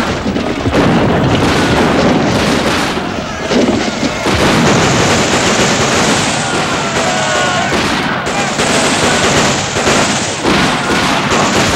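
Battle sound: flintlock musket and rifle gunfire with explosive booms, over many men shouting and yelling. The shots and blasts come densely and without pause.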